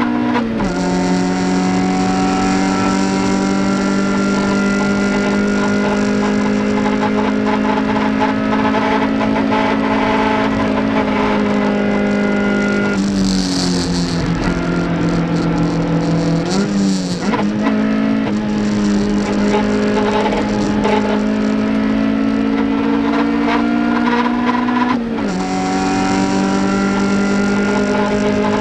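Toyota MR2 race car's four-cylinder engine at high revs on track: an upshift about half a second in, a long pull at steady revs, then the throttle lifts around the middle with two quick blips on the downshifts, followed by another pull and an upshift near the end.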